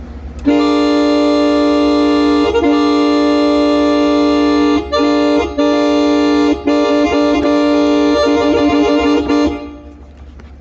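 Yamaha PSR-F51 electronic keyboard playing a held chord of several notes voiced to imitate a locomotive horn. The chord comes in about half a second in, is broken by a few short gaps, is re-struck in quick succession in the later part and is released near the end.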